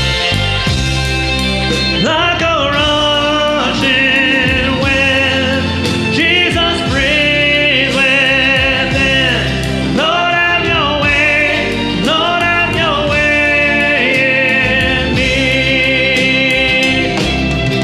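Live worship band playing a song, acoustic and electric guitars with keyboard, and a voice singing phrases of long held notes with vibrato, coming in about two seconds in.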